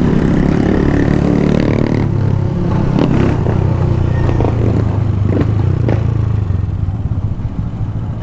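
Small Honda street motorcycle's engine running at low, steady revs while riding slowly, with a few brief knocks, easing off near the end as the bike slows.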